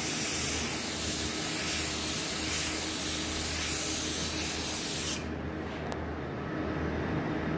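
Paint spray gun hissing steadily as it sprays paint, then cutting off suddenly about five seconds in. A low steady hum continues underneath.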